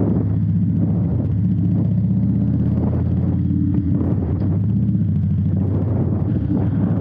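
Harley-Davidson V-twin motorcycle engine running steadily under way, with wind buffeting the microphone.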